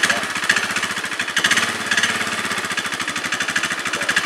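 Polaris ATV engine idling with a fast, even pulsing.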